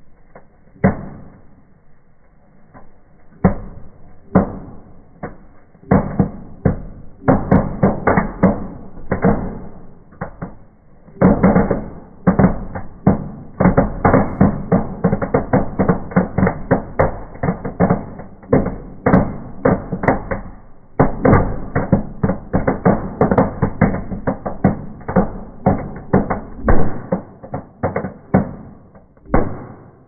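Firework fountains burning with loud crackling bangs: a few separate cracks over the first ten seconds, then a dense, irregular barrage of bangs that keeps going until near the end.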